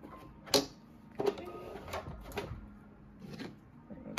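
Hands handling cotton rope and fabric: irregular clicks, knocks and rustles at uneven intervals, the sharpest click about half a second in.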